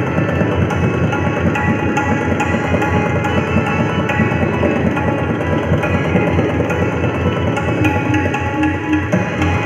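Tabla played in a fast solo passage of rapid strokes in teental, over a harmonium holding a repeating melodic refrain (lehra).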